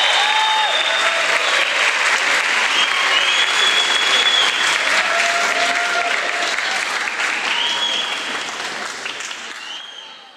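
Audience applauding, a dense patter of many hands clapping with a few voices over it, fading out near the end.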